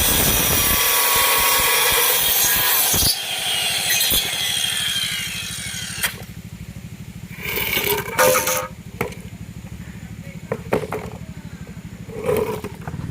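Circular saw cutting through plywood, then switched off about three seconds in, its blade whine falling as it spins down. A few knocks and clatters follow.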